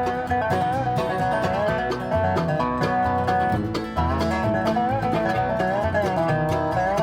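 Background music: an upbeat instrumental tune with plucked strings and a steady beat.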